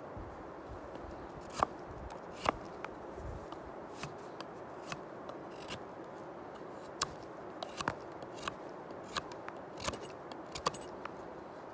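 Bark River Bushcraft Scout knife carving a wooden stick, a string of sharp, irregular snicks as the blade takes shavings off to flatten its sides.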